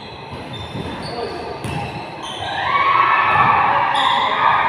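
Basketball bouncing on a hard gym court, with sneakers squeaking as players run. From about halfway in, players' voices shouting become the loudest sound.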